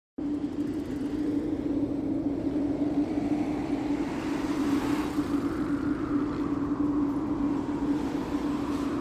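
Steady city ambience: a low rumble of distant traffic with a constant hum, starting abruptly after a brief silence and swelling slightly in the middle.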